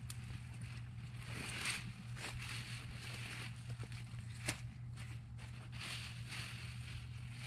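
Faint rustling of beet leaves and soil as beets are pulled up by hand, with a few sharp clicks, the loudest about four and a half seconds in, over a steady low hum.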